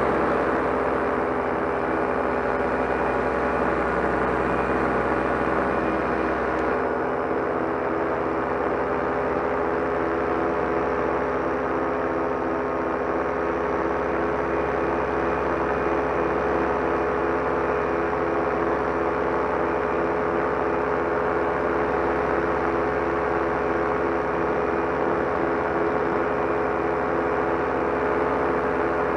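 Solo 210 single-cylinder two-stroke paramotor engine and propeller running steadily in flight, an even drone that holds at one throttle setting.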